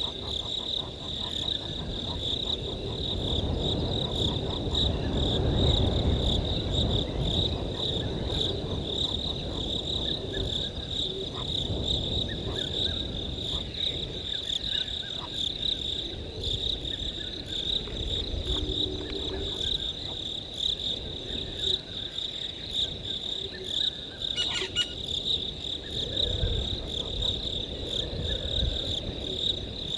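Crickets chirring in a steady, rapid pulsing trill through a night chorus, over a low rumble that swells about five seconds in and again near the end.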